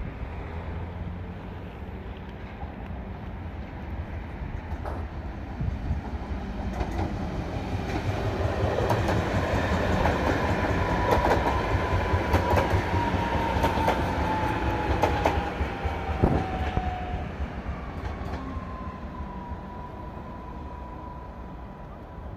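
Koleje Dolnośląskie electric multiple unit running past and slowing into the station. The rumble builds to a peak midway, with wheels clicking over rail joints and a whine that falls slightly in pitch as it slows. A steadier whine follows near the end as it draws to a stop.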